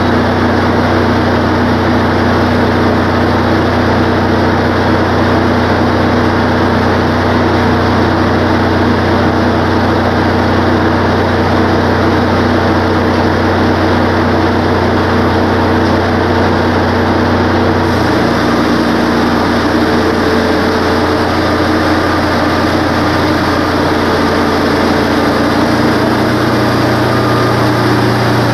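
Engine of a Wood-Mizer LT15 portable band sawmill running steadily at speed. About 18 seconds in, the engine note drops a little and changes as the band blade takes load sawing into a pine log.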